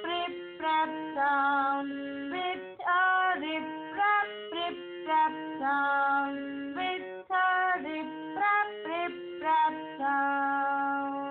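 Music: the rain song's tune carried by a single melody line of short notes over sustained lower notes, settling into a long held note near the end.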